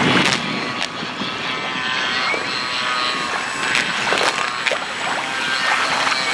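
Electric motor and propeller of a radio-controlled Carbon-Z Cub floatplane whining steadily as it taxis on the water, with wind buffeting the microphone.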